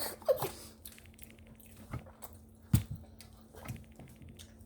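Soft wet mouth sounds close to the microphone: scattered clicks and squishes of eating or sipping, with one sharper click near the middle.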